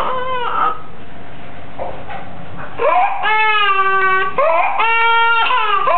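Toddler crying in two long, drawn-out wails, the first starting about three seconds in and the second shortly after it.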